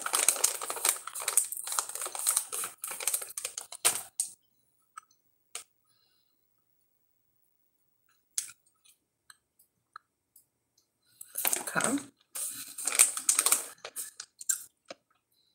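Plastic snack pouch crinkling as it is handled and reached into, for about four seconds; then a few faint clicks; then crinkling again from about eleven seconds in.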